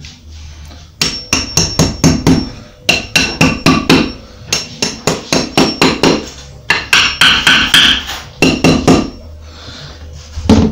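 Claw hammer striking the heads of screws, tapping plastic wall plugs through a timber batten past the plaster into the brick behind. The strikes come in several quick runs of about four a second, each with a light metallic ring.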